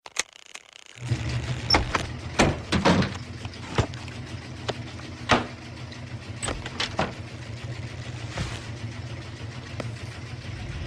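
Washing machine starting up about a second in and then running with a steady low hum, with scattered clicks and knocks over it.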